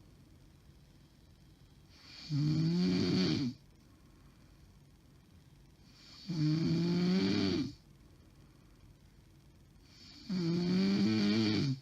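A woman snoring in her sleep: three long snores, evenly spaced about four seconds apart, each with a wavering pitch. The uploader takes this snoring as a sign of sleep apnea.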